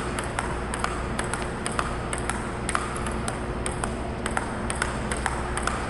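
Table tennis ball clicking off the paddles and the table in a steady warm-up rally, about three or four sharp ticks a second, over a steady low hum.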